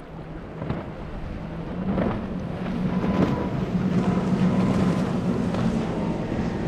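Triple Mercury 300 outboard engines on a Yellowfin center-console boat running at speed: a steady engine drone that grows louder over the first few seconds. Rushing spray and wind on the microphone lie underneath it.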